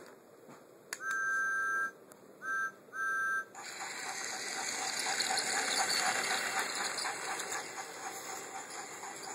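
Battery-powered TrackMaster Talking Thomas toy engine switched on with a click, its speaker sounding three whistle toots, the first the longest. Then a steady hissing, rapidly chuffing steam sound effect plays as the engine runs along the plastic track.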